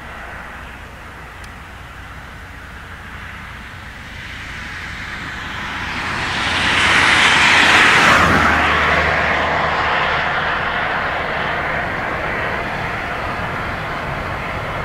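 A vehicle passing close by: a rushing noise that builds, peaks about eight seconds in with a sudden drop in pitch, then fades away slowly.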